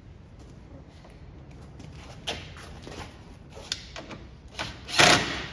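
A few scattered knocks and clicks, with a louder knock about five seconds in.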